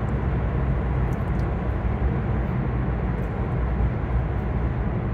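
Steady low road rumble and engine noise heard from inside a car driving through a road tunnel.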